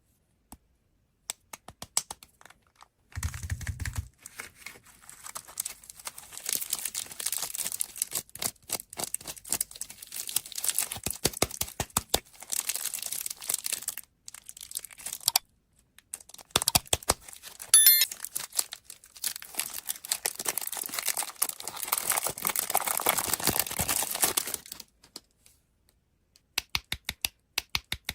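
Candy wrappers crinkling and tearing as sweets are unwrapped, in long rustling stretches with short pauses. Quick runs of sharp clicks come at the start and again near the end.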